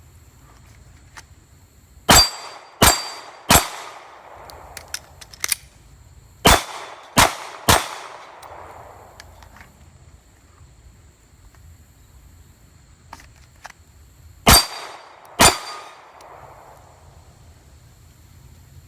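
Glock 23 Gen 4 pistol, fitted with a Lone Wolf .40-to-9mm conversion barrel, firing 9mm Tula steel-case ammunition. Three quick shots, a short pause, three more, then after a longer pause two shots about a second apart, each with a short echo trailing off.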